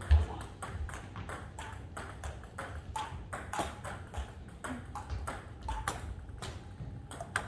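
Table tennis balls clicking off bats and tables, irregular sharp ticks several times a second from rallies on more than one table. A single low thump sounds just after the start.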